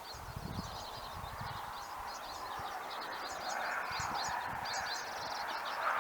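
Several small birds chirping and singing in quick short notes over a steady outdoor hiss, with some low rumbling in the first second or so.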